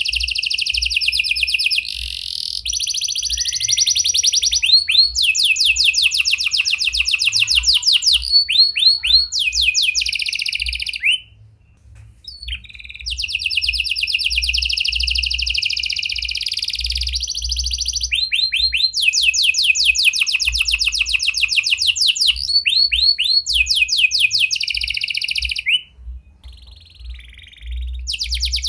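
A red-factor domestic canary singing long, loud song phrases of fast trills and rapidly repeated chirping notes, with two short breaks about 11 and 26 seconds in. It is a canary song holding phrases copied from the prenjak (bar-winged prinia) and the lovebird.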